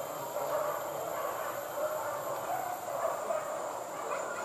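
A pack of hunting dogs baying on the chase of a wild boar, heard from some way off, their voices blending into a steady, wavering chorus.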